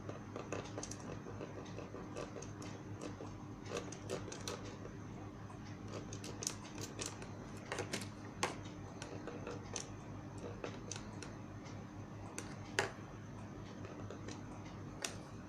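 Irregular light clicks and taps from working the amplifier's push-button input selector switches while cleaning them, over a steady low hum.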